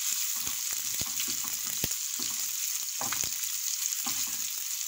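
Sliced red onions frying in hot vegetable oil with a steady sizzle, while a wooden spoon stirs them and scrapes the pan in irregular strokes.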